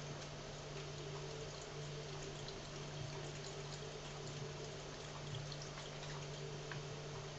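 Domestic cat crunching dry cat food, scattered short sharp crunches that sound like chewing bones, over a steady low hum.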